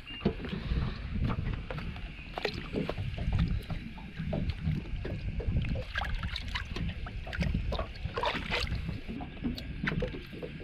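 Wind rumbling on the microphone aboard a small fishing boat, with scattered irregular knocks and taps against the boat.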